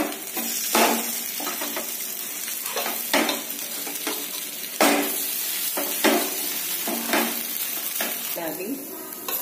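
Maize-flour thepla sizzling in oil on a nonstick tawa, with a metal spatula scraping under them and clacking against the pan as they are flipped, about five sharp strokes spread through the steady sizzle.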